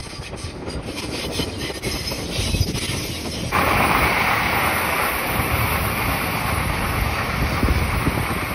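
Shinkansen bullet train running past on the tracks: a steady rushing hiss of wheels and air that starts abruptly about three and a half seconds in, over a low rumble of wind on the microphone.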